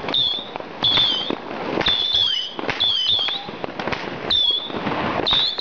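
Fireworks going off: a short, warbling high whistle about once a second over a steady crackle of pops and bangs.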